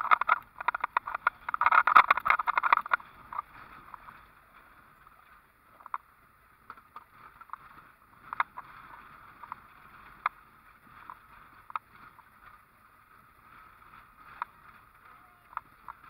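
Vehicle driving along a bumpy dirt road, with dense rattling and knocking for about the first three seconds, then quieter running with scattered knocks.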